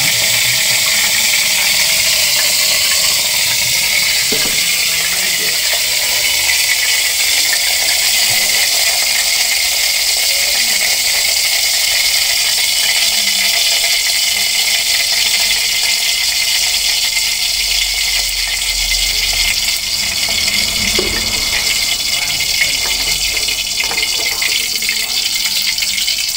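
Steady hiss of cooking on a gas stove, with a wok of oil heating over the flame for frying tempeh.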